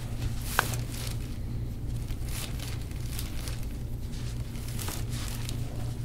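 A single sharp pop about half a second in, a foot joint cracking as the foot is manipulated by hand, followed by a few faint crinkling rustles over a steady low hum.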